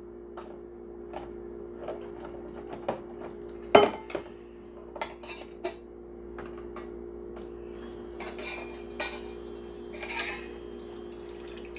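Small stainless-steel toy pots clinking and knocking against each other and the plastic toy sink as they are washed, with one louder clank about four seconds in. A steady hum runs underneath.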